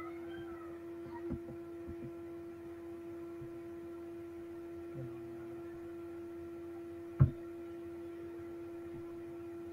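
Steady background hum on one tone, with a few faint clicks and one sharp knock about seven seconds in.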